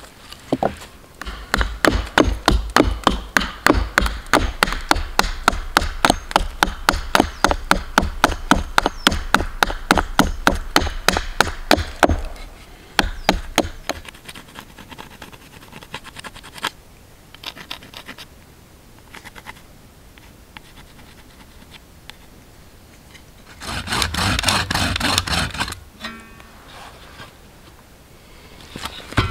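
Hand tools working a piece of wood: fast, even strokes, about five a second, for around ten seconds, then quieter scratching and scraping, and a short loud rasping burst near the end.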